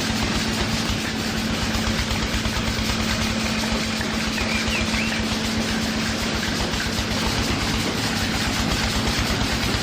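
A motor running steadily with a constant hum and rapid low pulsing, like an idling engine.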